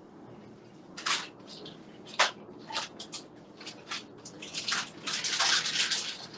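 A plastic food bag crinkling and rustling as it is handled, in irregular bursts that grow busier near the end.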